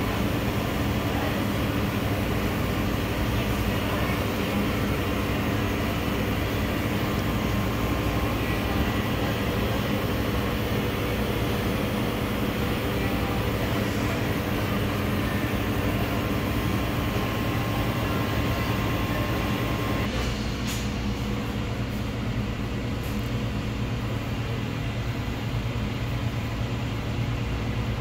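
Commercial kitchen machinery running with a steady low drone and several held tones. About twenty seconds in, the higher hiss drops away and it gets slightly quieter.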